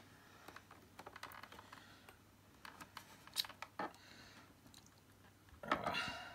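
Small clicks, taps and scrapes of plastic parts being handled inside the opened housing of an Electrolux 502 upright vacuum cleaner, with a denser, louder clatter near the end.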